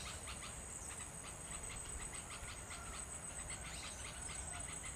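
Faint outdoor chirping of insects, a steady run of short chirps about five a second, over a low background rumble.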